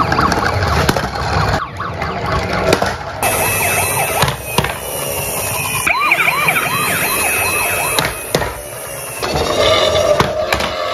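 Electronic siren sounds from battery-operated toy emergency vehicles, a toy ambulance and a toy police car. Several siren patterns play one after another and switch abruptly, among them a fast repeating up-and-down yelp.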